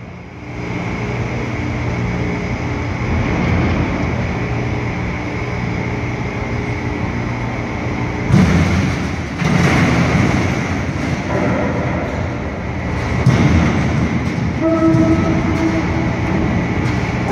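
Container gantry crane machinery running steadily as its spreader is lowered into a ship's cargo hold, with a low hum throughout, louder surges about halfway and again later, and a brief higher tone near the end.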